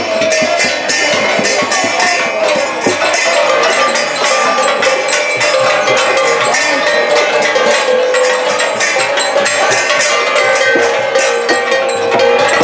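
Metal percussion clanging in a fast, steady beat, like bells or hand cymbals struck over and over, above a crowd's voices and held tones.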